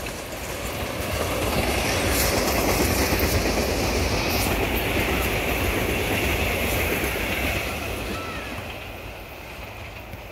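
SEPTA Regional Rail electric multiple-unit train passing at speed, its wheels running on the rails. The sound swells over the first couple of seconds, holds, and fades away near the end.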